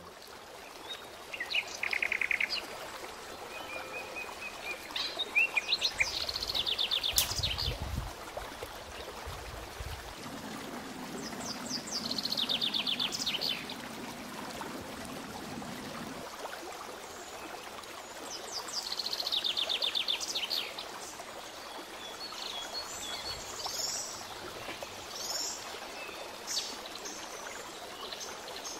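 Songbirds singing outdoors: short, fast trilled phrases every several seconds over a steady background hiss.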